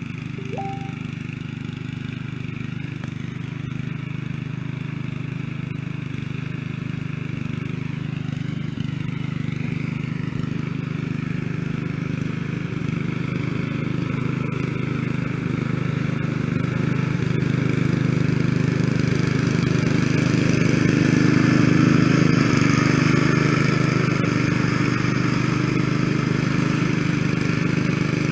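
Snapper rear-engine riding mower with an 8 hp single-cylinder engine running steadily while mowing, growing louder as it comes closer.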